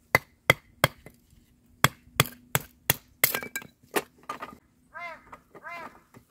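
Sharp wooden knocks in quick runs of about three a second: firewood being split into kindling, with a hatchet or a knife batoned through it. From about five seconds in come a few short squeaky calls that rise and fall.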